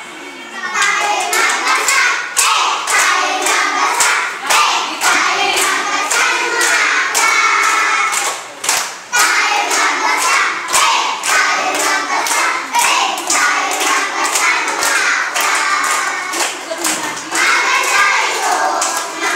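Children's choir singing together, with sharp rhythmic hand claps keeping time, about two to three a second.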